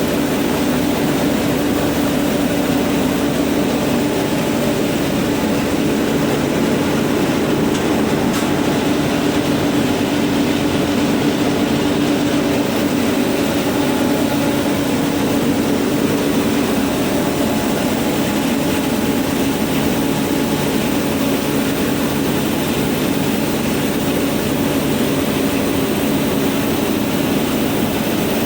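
Rice milling machine running steadily, a loud, even mechanical drone with a constant hum.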